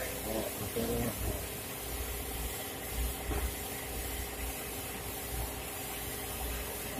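Steady low rumble and hiss of workshop background, with faint distant voices in the first second or so.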